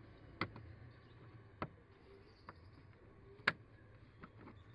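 Sharp light clicks and taps of plastic dashboard trim being pressed and handled by hand, three of them louder than the rest, over a faint low hum.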